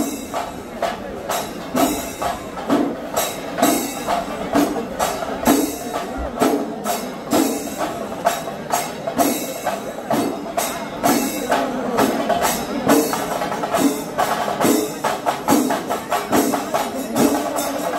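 Rhythmic percussion music: a steady beat of sharp drum and cymbal strikes over a pitched melody.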